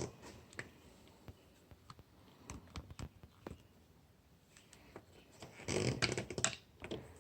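Light scattered clicks and taps of a Phillips screwdriver and terminal screw being worked loose at a motorcycle battery's positive terminal, with a louder rustle of handling about six seconds in.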